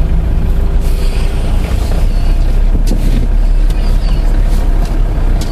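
A vehicle engine idling steadily with a deep, even rumble, with a few short high chirps over it.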